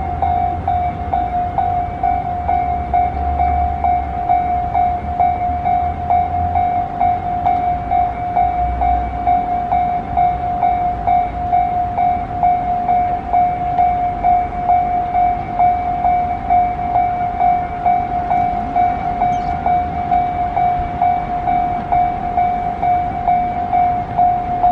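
Japanese level-crossing warning bell ringing at one pitch, about two strokes a second, signalling that a train is approaching or passing. A low rumble runs under it for roughly the first nine seconds.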